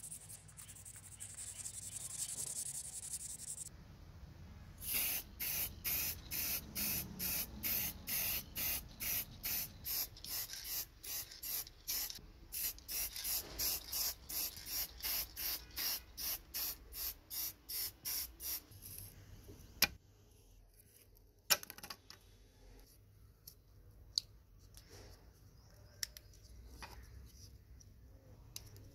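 Aerosol spray-paint can fired in short hissing bursts, about two a second for some fifteen seconds, coating a model car body. Before the bursts comes a few seconds of sandpaper rubbing on the body, and after them a few sharp clicks.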